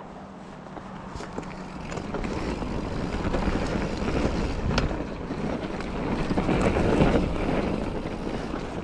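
Wind rushing over the camera microphone and tyre roar from a 2016 YT Capra AL 1 mountain bike riding a trail, with scattered clicks and knocks from the bike. It grows louder toward about seven seconds in and eases a little near the end.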